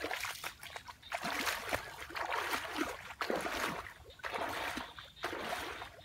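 Footsteps wading through shallow muddy water, with a splash and slosh at each stride in an even walking rhythm.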